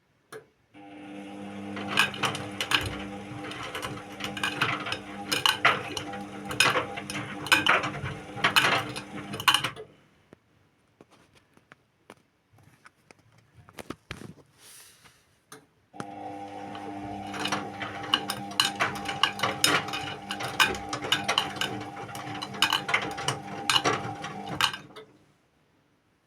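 Indesit WIU81 front-loading washing machine tumbling its load. The motor hums while the drum turns for about nine seconds, stops for about six, then turns again for about nine seconds, with clattering knocks and clicks from the load as it tumbles.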